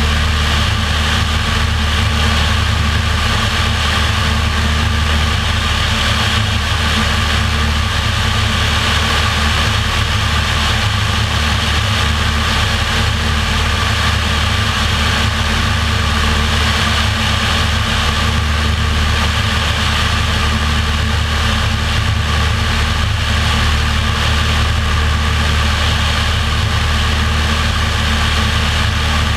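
Light single-engine propeller airplane in level cruise, heard from under the fuselage: a steady engine and propeller drone with an even rush of air.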